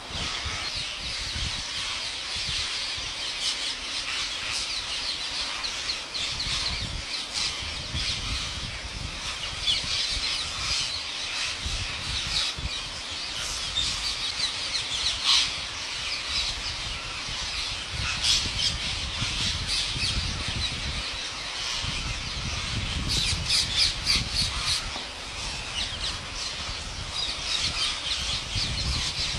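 A large flock of rose-ringed parakeets calling all at once: a dense, unbroken chatter of overlapping shrill squawks.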